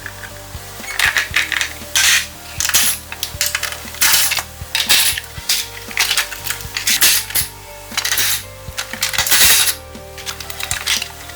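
Repeated short metallic scraping and clinking strokes from hand work on metal parts, irregular and about one or two a second, with background music.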